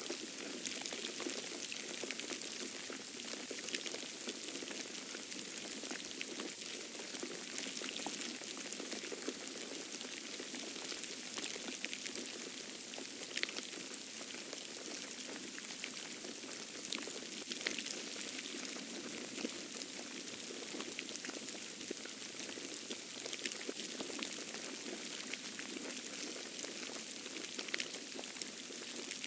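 Steady patter and hiss of wet falling snow, sounding much like light rain, with many small random ticks of flakes striking nearby surfaces.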